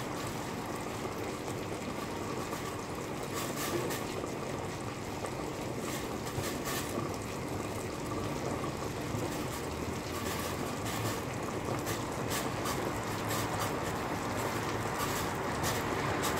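Cream sauce simmering in a frying pan: a steady bubbling hiss with scattered small pops.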